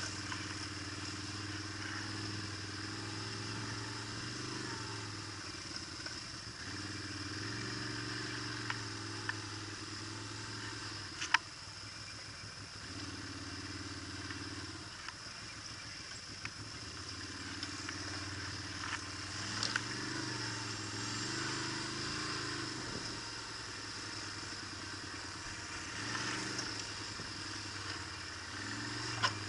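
Quad bike (ATV) engine running at low, varying throttle, swelling and easing off every few seconds as it crawls over rough trail. Occasional sharp knocks come through, the loudest about eleven seconds in.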